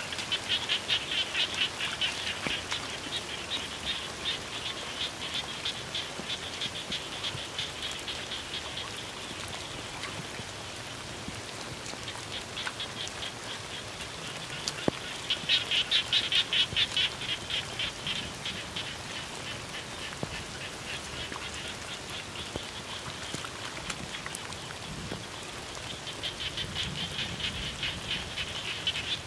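Frog chorus: rapid, high-pitched trills of clicking pulses that swell and fade in waves, loudest a little past the middle and again near the end.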